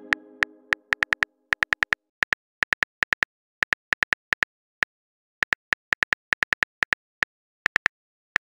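Phone-keyboard typing sound effect: short, sharp clicks in irregular runs of about four or five a second, with brief pauses between runs. The tail of a message chime fades out in the first second or so.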